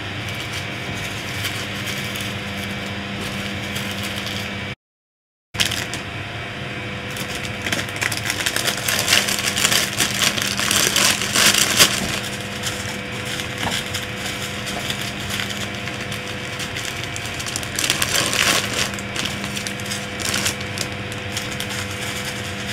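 Small plastic zip bags of diamond-painting drills being handled, the plastic crinkling and the tiny resin drills rattling inside. It is busiest a few seconds in and again near the end. A steady low hum runs underneath, and the sound cuts out completely for under a second about five seconds in.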